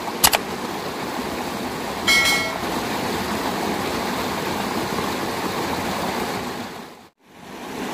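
Steady rush of water pouring into a muddy creek pool. A sharp click sounds just after the start, as a subscribe-button graphic is clicked, and a short ringing chime about two seconds in; the sound cuts out briefly near the end.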